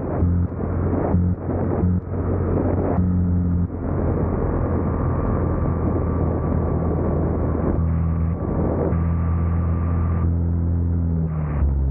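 Go-kart engine running at speed, heard onboard. Its note drops out briefly several times over the first four seconds, then runs steady.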